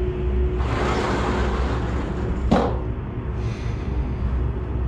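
Horror short-film soundtrack: a steady low rumbling drone, with a hissing swell rising about half a second in and a sharp hit about two and a half seconds in.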